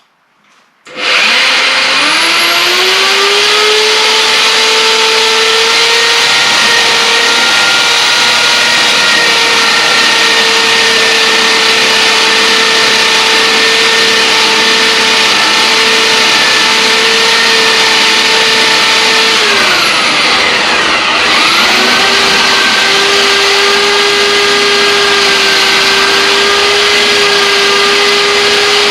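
Electric drill boring a hole into an oak slab: the motor spins up about a second in and runs at a steady pitch, slows to a near stop about two-thirds of the way through, spins back up, and winds down at the end.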